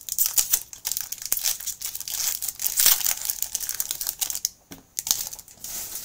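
Trading-card pack wrappers crinkling and crackling as they are handled and crumpled. The dense crackle lasts about four and a half seconds, then there is a brief pause and one short last burst.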